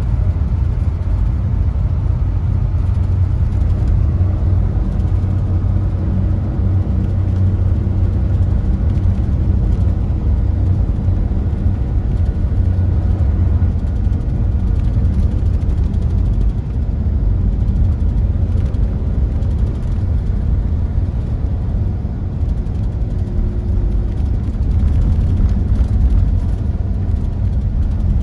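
Mercedes-Benz Tourismo coach driving at steady road speed, heard from inside the passenger cabin: a constant low drone of engine and road noise.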